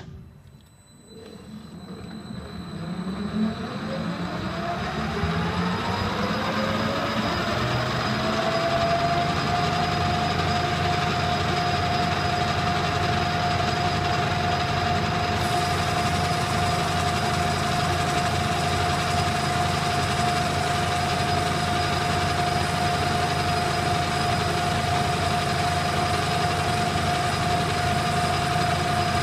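Lance metal lathe switched on, its motor and spindle spinning up with a whine that rises in pitch for about eight seconds, then running steadily at speed while a cut is taken on brass bar stock.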